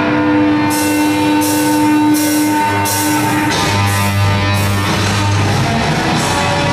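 Live heavy metal band playing: electric bass and guitar hold long sustained notes, a higher note giving way to lower ones about halfway through, under drum-kit cymbal crashes that come about every 0.7 s.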